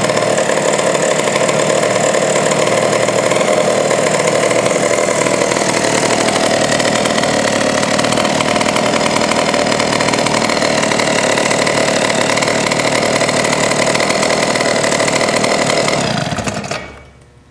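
McCulloch Model 73 gear-drive chainsaw's 120 cc two-stroke single-cylinder engine running steadily, then shut off and dying away near the end.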